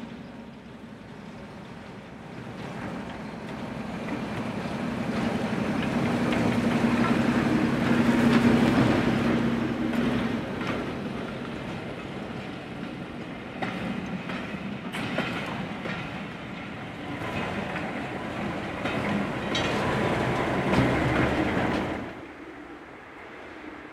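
Diesel shunter's engine running as it approaches and passes at the head of a rake of coaches, growing louder to a peak about eight seconds in. The coaches then roll by with wheels clicking over the rail joints, and the sound cuts off shortly before the end.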